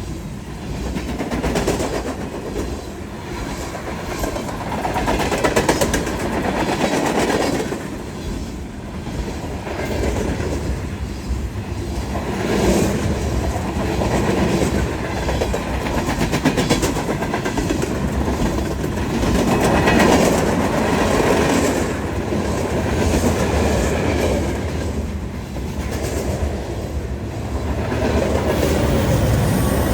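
Freight train cars rolling past, with steel wheels clattering over the rail joints and the rumble swelling and easing.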